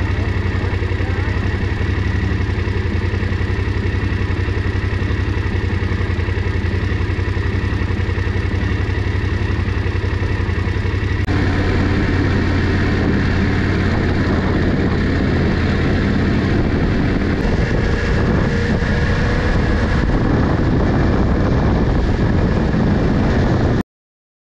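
BMW F750GS motorcycle's parallel-twin engine idling steadily. About eleven seconds in the sound changes abruptly to the engine running with the bike under way, louder and with more noise over it. It cuts off suddenly near the end.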